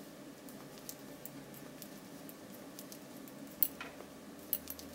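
Faint clicking of metal double-pointed knitting needles tapping against each other as stitches are knitted, with a few sharper clicks near the end.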